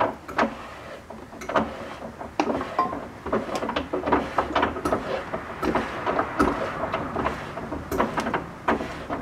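Land Rover Discovery 3 spare-wheel winch being hand-cranked, hoisting the spare wheel on its cable, with irregular clicking and clattering from the mechanism. The winch, freshly cleaned of the dirt that had jammed it, is working again.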